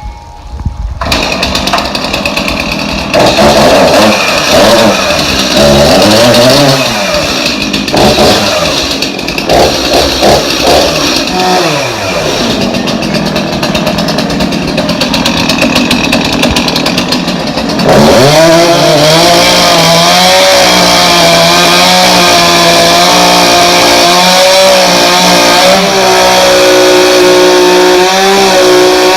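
Chainsaw starting up about a second in, its speed rising and falling unevenly. From a little past halfway it holds steady at high speed. It is being used to carve the trunk of a bougainvillea bonsai.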